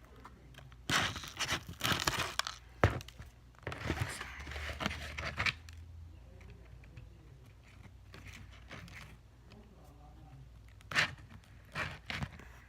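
Close-miked crinkling and tearing in three bursts, with a single sharp tap about three seconds in.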